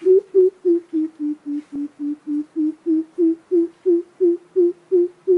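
Greater coucal calling: a steady run of low hoots, about three a second, dipping a little in pitch over the first two seconds and then rising again.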